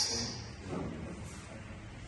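The high ring and echo of a small-bore rifle shot fading away in an indoor range. It is followed by a lull of low room noise.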